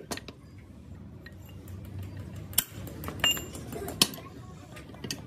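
Irregular metal clinks and knocks as a hammer and a steel brake shoe are handled against a brake assembly: about six sharp hits, a couple ringing briefly.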